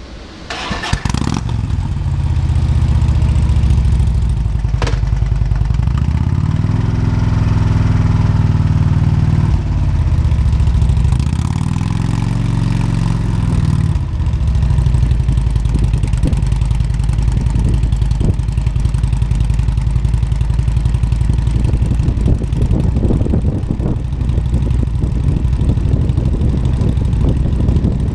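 Motorcycle engine starting about a second in, then idling, revved up and back down twice, then running steadily as the bike rides off.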